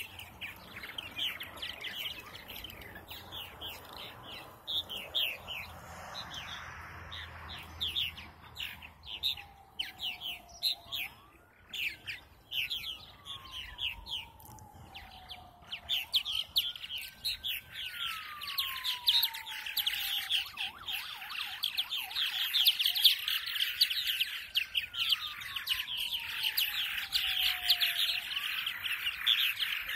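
A colony of purple martins chirping and chattering in flight, a dense stream of short calls that grows fuller and louder about halfway through. From about ten seconds in, a separate wailing tone rises and slowly falls, repeating roughly every four seconds.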